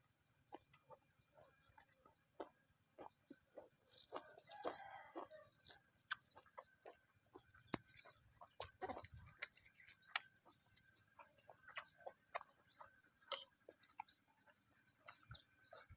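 Faint, irregular clicks and smacks of someone chewing and eating, scattered through the quiet, a little busier about four seconds in.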